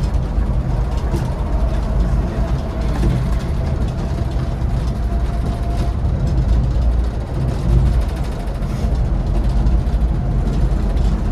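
Scania coach running: a steady, loud low rumble of engine and road noise.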